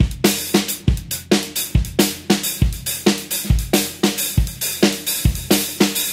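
Drum kit solo playing a fast groove based on the Afro-Venezuelan San Millán rhythm, with bass drum, snare and cymbals struck several times a second.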